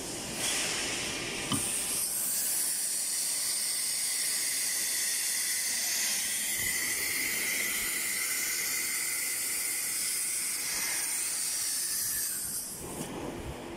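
Automatic-tool-change CNC router running its first tool: a steady high hiss sets in about half a second in, with a click about a second later, and falls away near the end.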